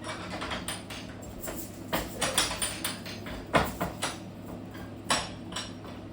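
Irregular sharp clacks and knocks from a floor loom's parts being handled and adjusted while the warp is set, over a steady low hum; the loudest knock comes about three and a half seconds in.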